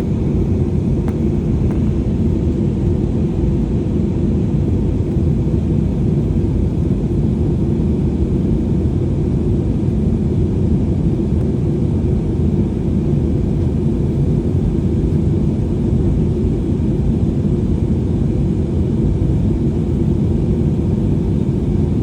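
Airliner cabin noise in flight: a steady low rumble of engines and airflow that holds even throughout, with one faint click about a second in.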